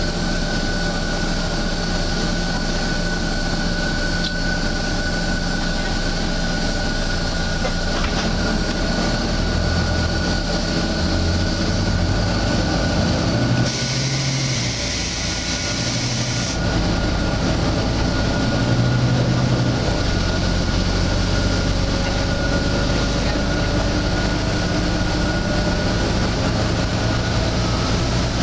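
Volvo B9TL double-decker bus under way, heard from inside: steady drone of the engine and running gear with a thin, steady whine. About fourteen seconds in, a burst of air hiss lasts roughly three seconds, one of the strange hissing noises this bus makes.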